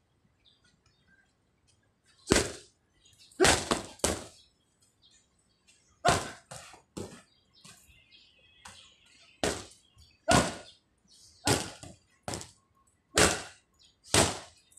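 Boxing gloves smacking focus mitts during pad work: about fifteen sharp hits, thrown singly and in quick combinations of two to four, beginning about two seconds in.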